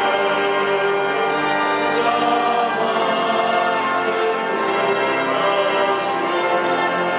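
Walcker pipe organ holding and changing chords while a choir sings, in a reverberant cathedral.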